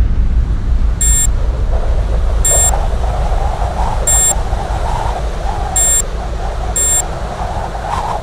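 Projection-mapping show soundtrack: a deep, steady low rumble with five short, bright electronic beeps, spaced about a second to a second and a half apart.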